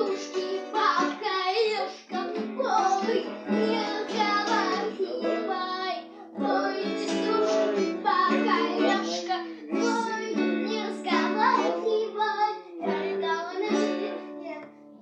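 A child singing a song over a strummed acoustic guitar.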